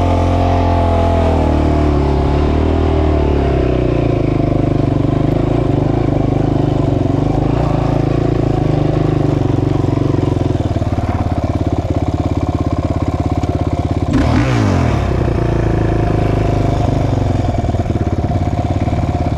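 Sport ATV's single-cylinder engine running close by, its pitch wavering over the first few seconds and then holding steady. About fourteen seconds in there is a quick dip and rise in pitch.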